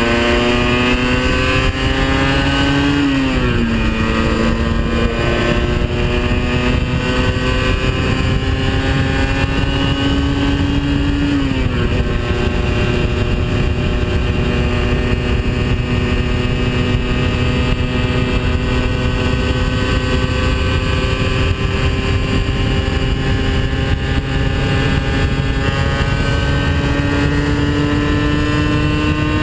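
Aprilia RS 50's 50 cc two-stroke single running under way, heard from on the bike. Its note climbs slowly as it pulls, drops sharply twice, about three and about twelve seconds in, then climbs again, with wind rushing over the microphone underneath.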